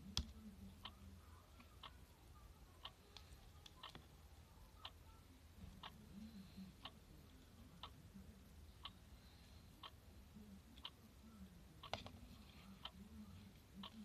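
Near silence with faint, steady ticking, about one tick a second.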